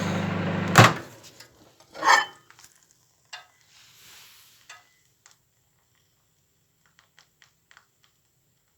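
Knocks and clatter of a dish being handled, with a short hum in the first second, then a louder rattle about two seconds in and a run of faint scattered clicks.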